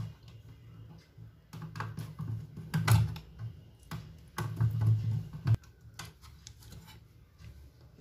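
Hands and a screwdriver working at an inverter's front panel: irregular clicks, knocks and scrapes of plastic and metal as the small switch circuit board is unscrewed and pulled free, in two spells.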